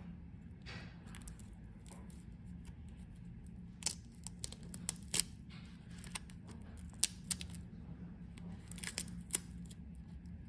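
Floral washi tape being peeled off its roll and its pre-cut leaf and flower shapes pulled apart: soft paper rustling, then from about four seconds in a series of small sharp crackles and ticks as the tape lifts away. A faint steady hum underlies it.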